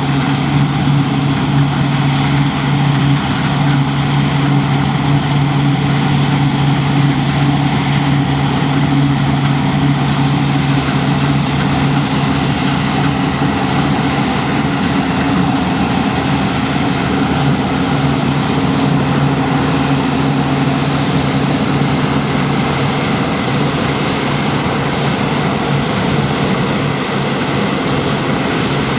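Diesel engine of heavy harvest machinery running steadily under load, a loud drone with a low hum and a second tone above it. The hum fades out about three quarters of the way through, leaving a broader mechanical rumble.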